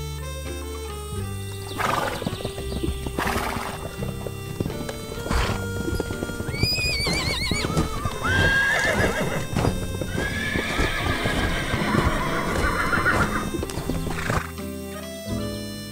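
Horse hooves clip-clopping, with a wavering whinny a little before halfway and longer neighing after it, over background music.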